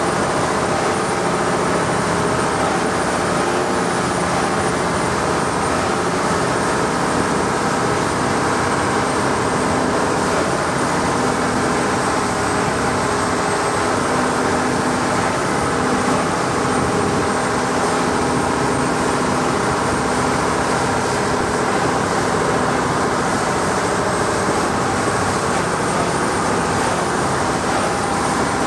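Engine of a wooden longtail boat running steadily at cruising speed, a loud, unbroken drone with the rush of the hull through the water.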